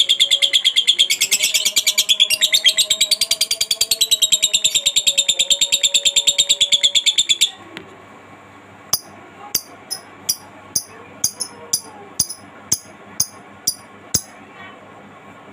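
Lovebird ngekek: one long, loud, very fast high-pitched chattering trill that cuts off abruptly about halfway through. It is followed by about a dozen short, sharp, high chirps, roughly two a second.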